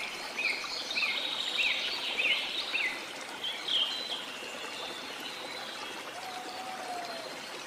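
Flowing water with a bird calling over it: a short chirp repeated about every half second for the first three seconds, then a few scattered calls.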